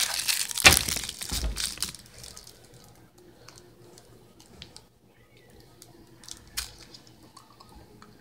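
Crinkling and tearing of a gum wrapper as a piece of gum is unwrapped, strongest in the first two seconds, then a few faint clicks and rustles.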